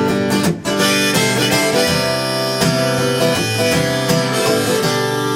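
Instrumental break in a solo folk song: strummed acoustic guitar under held harmonica chords.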